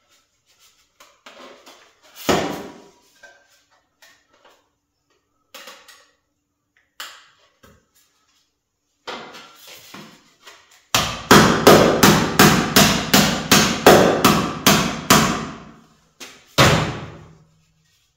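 Hammer blows on sheet metal. A single loud strike early on, then a fast, even run of about fifteen blows at roughly three a second, and one more ringing strike near the end, with lighter clicks of handling in between.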